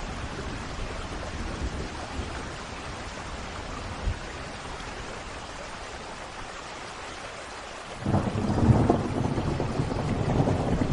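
Steady rain, then about eight seconds in a roll of thunder breaks in suddenly and rumbles on, louder than the rain.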